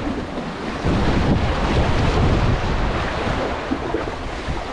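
Wind buffeting the microphone over sea waves washing and churning against concrete tetrapod blocks, getting louder about a second in.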